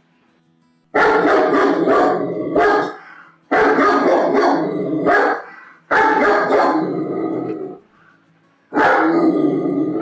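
German Shepherd barking in four volleys of quick, loud barks, each volley about two seconds long, with short pauses between them.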